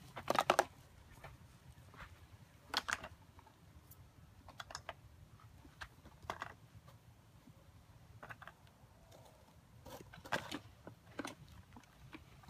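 Irregular clicks and knocks of plastic toy tractors, a plastic toy wagon, a stone and a stick being handled, with the loudest clatters about half a second in, near three seconds and about ten seconds in.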